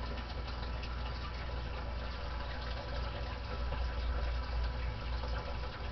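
Steady hiss and rushing noise with a continuous low hum from a CB radio setup, with no break or change.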